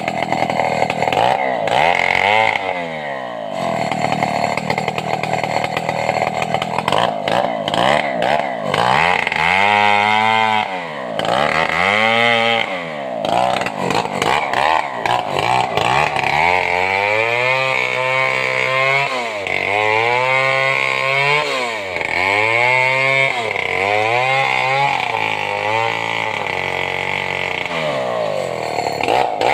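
Stihl two-stroke chainsaw cutting into a large sengon log, its engine pitch dipping and rising again over and over as the chain bogs in the cut and frees up.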